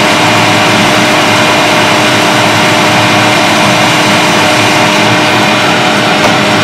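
Hot air rework station blowing a steady hiss of hot air with a faint steady hum under it, reflowing the solder under a small IC on a logic board.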